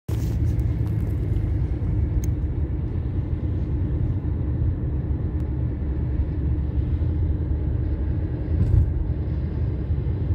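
Steady low rumble of a car driving, engine and road noise heard from inside the cabin, with a faint steady hum over it.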